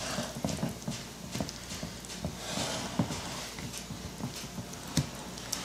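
Silicone spatula patting and smoothing a dense meatloaf mixture in a glass loaf pan: irregular soft thumps and scrapes, with a sharper knock about five seconds in.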